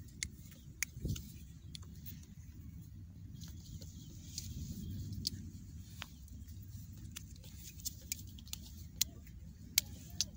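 Hands handling irrigation control wires and small plastic wire connectors: scattered light clicks and rustles, irregularly spaced, over a low steady rumble.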